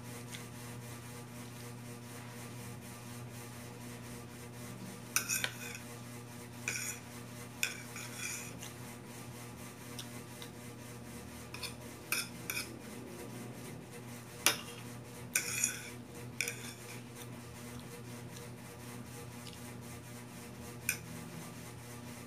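Metal fork scraping and clinking against a ceramic plate in scattered short bursts while eating, over a steady low hum.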